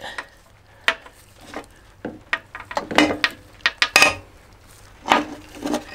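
Irregular metallic clinks and knocks: a spark plug held in a socket spanner is moved against a mower engine's metal to earth it for a spark test.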